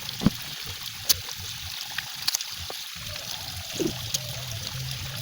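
Flowing river water running steadily, with a few sharp clicks scattered through and a faint low hum in the last second or so.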